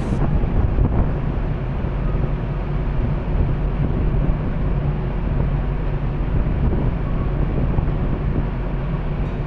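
Steady low drone of ship engines running, with wind noise on the microphone.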